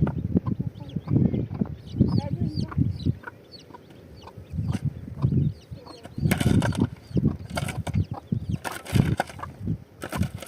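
Domestic chickens clucking, mixed with low voice-like sounds, and a few short noisy rustles about six and nine seconds in.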